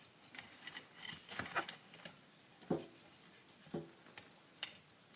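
Scattered light clicks and knocks from handling the tube radio's chassis and parts, with a sharp click near the end.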